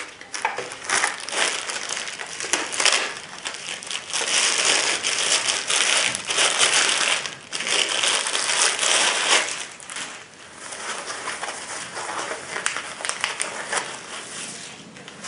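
Clear plastic bag and thin wrapping sheet crinkling as a rifle scope is pulled out and unwrapped by hand. It is loudest through the first ten seconds or so, then softer and more broken toward the end.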